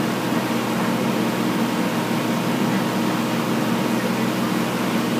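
A steady low mechanical drone that holds even, with no clear strokes or changes.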